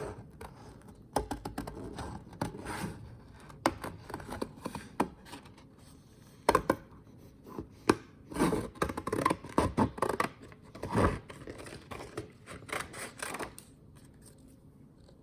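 Scissors snipping through thick printed paper in short, irregular cuts while a shape is cut out along its outline, dying away near the end.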